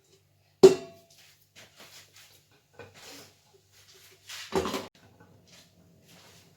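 Kitchenware clanking while the boiled vermicelli is drained: a sharp metallic clank with a brief ring about half a second in, a second clatter at about four and a half seconds, and light clicks in between.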